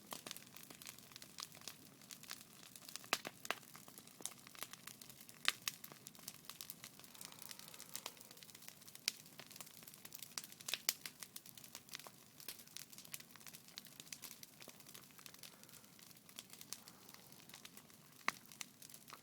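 Wood campfire burning down, crackling with irregular sharp pops and snaps, a few much louder than the rest, over a faint low hiss.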